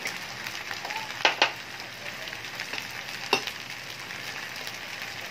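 Fried onions with ginger-garlic paste and crushed red chilli sizzling steadily in hot oil in a pan. Two sharp knocks come about a second and a half in, and a third a little after three seconds.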